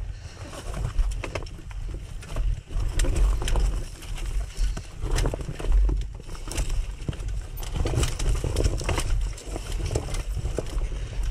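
Dirt bike rolling slowly down a loose rocky trail: tyres crunching and knocking over stones and the bike rattling, irregular clacks over a low rumble.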